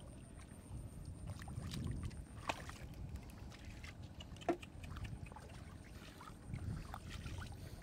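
Wet mud and shallow water squelching and sloshing as hands dig in the mud and then feet wade through it, over a rough low rumble, with a couple of sharp knocks, the loudest about four and a half seconds in.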